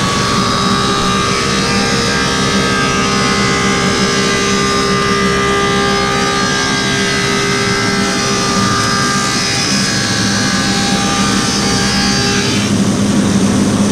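Woodmaster 725 planer running and cutting a maple slab: a loud, steady machine sound with a high ringing whine from the cutterhead. About twelve and a half seconds in, the high whine drops away as the board clears the cutter, and the planer runs on with a lower hum.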